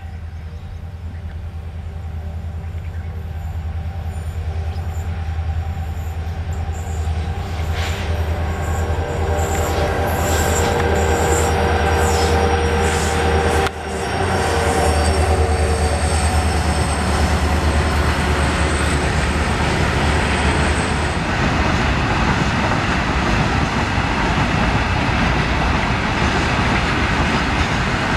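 Several diesel locomotives hauling a long freight train. Their engines drone low and steadily, growing louder as the train comes closer, and a thin high whine runs through the middle of the passage. After that come the steady rumble and clatter of the wagons rolling past on the rails.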